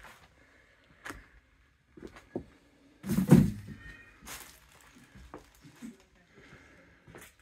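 Footsteps and knocks while walking over a debris-strewn floor in a derelict room. There is a loud thump a little after three seconds in, with a brief thin squeak just after it.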